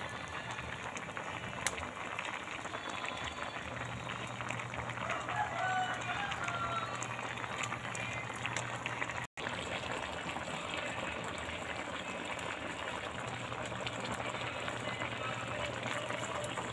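Coconut milk simmering in a wok with vegetables and dried fish, bubbling and crackling steadily.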